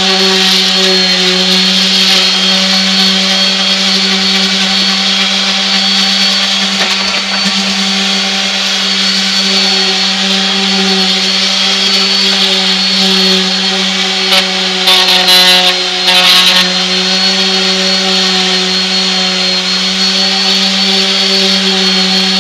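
Electric orbital palm sander running steadily against wood siding, a constant motor hum with the hiss of the pad abrading the surface, knocking down the fuzzy raised wood fibers left by power washing. A little past the middle it turns briefly louder and harsher, twice.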